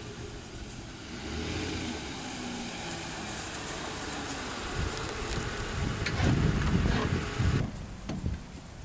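Pickup truck engine idling steadily, with a few low thumps about two-thirds of the way in.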